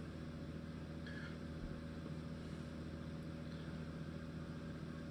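Room exhaust fan running: a faint, steady hum.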